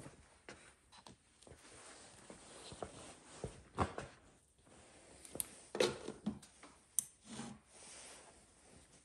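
Small handling noises in a quiet room: scattered light clicks, knocks and rustling, with a few louder knocks about four, six and seven seconds in.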